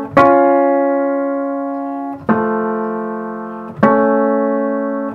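Acoustic piano playing contiguous major thirds dividing an octave, one two-note interval at a time, each struck, held and left to ring as it fades, with another struck right at the end. The thirds are played in turn to compare how fast each one beats, as a check that the equal temperament is set evenly.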